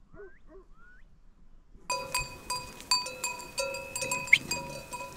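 Many sheep bells on a grazing flock clanking and ringing together, starting suddenly about two seconds in, with sheep bleating among them. Before that, only a couple of faint calls are heard.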